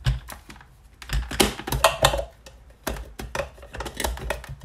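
Plastic parts of an electric mini chopper clicking and knocking as it is handled and set up on a countertop: an irregular run of clicks and clatters, with the motor not running.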